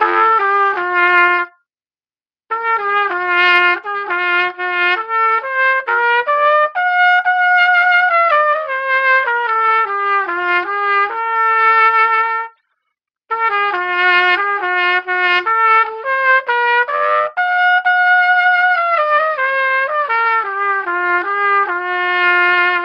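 Blue all-plastic pTrumpet played through its stock plastic mouthpiece. There is a brief opening phrase, then two longer melodic passages of mostly stepwise notes with short held notes, separated by a brief break.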